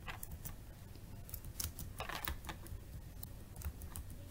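Computer keyboard being typed on: irregular clicking keystrokes as a line of code is entered.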